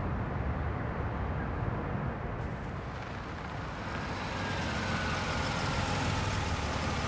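Steady low rumble of road traffic. About two seconds in a brighter hiss joins it, and later a faint, slowly falling whine of a car.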